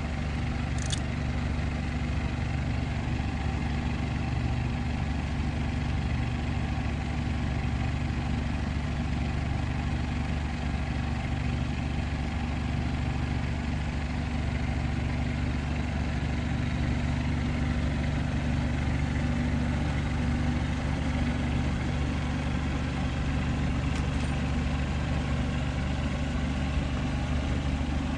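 A vehicle engine idling with a low, even hum that holds steady without revving.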